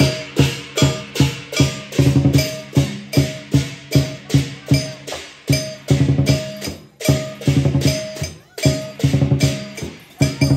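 Lion dance percussion: a drum beaten in a driving rhythm of about three to four strokes a second, with quicker flurries, and cymbals crashing with the beats.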